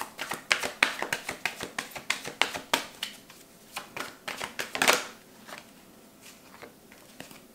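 Oracle card deck being shuffled by hand: a quick run of card flicks and slaps for about three seconds, thinning out, with one louder card slap about five seconds in.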